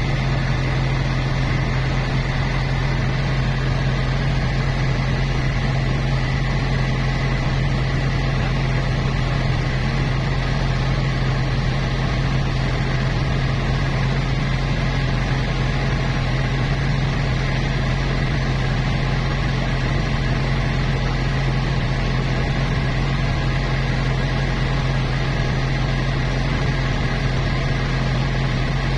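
Boat engine running at a steady speed as a constant low drone, heard from on board the moving boat.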